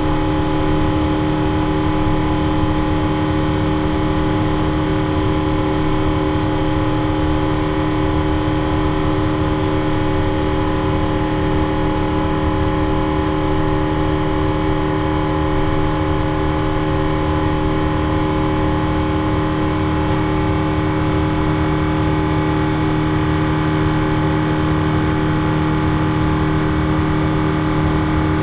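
Airbus A350-900's Rolls-Royce Trent XWB turbofan heard inside the cabin beside the wing: a steady rushing drone with several steady whining tones over it, unchanging in flight.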